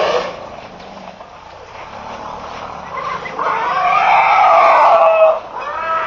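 African elephants calling: a loud, wavering call about three seconds in that lasts about two seconds, and another starting near the end.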